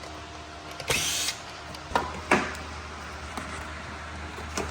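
Power driver briefly spinning out a Phillips-head screw, a short whirr about a second in, followed by a few sharp clicks, over a steady low hum.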